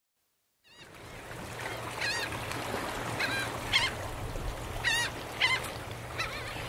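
Gulls calling, a series of short repeated calls over a steady background hiss, fading in from silence under a second in.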